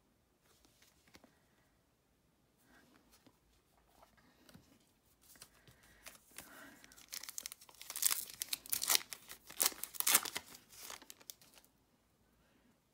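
A Garbage Pail Kids trading card pack's plastic wrapper being torn open and crinkled, starting about five seconds in and loudest in the last few seconds before it stops.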